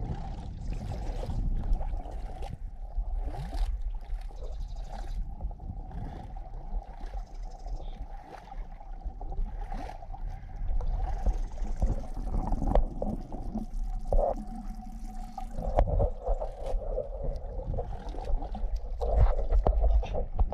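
Stream water flowing and swirling around a person standing waist-deep, a continuous rushing wash with a low rumble and a few sharp clicks and knocks.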